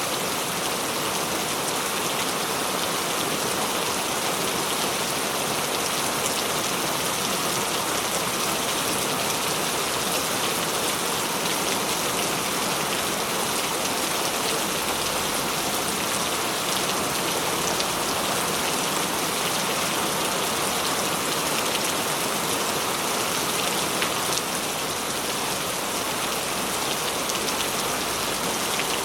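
Steady heavy rain falling on surfaces, an even hiss with scattered drop patter and no change in strength.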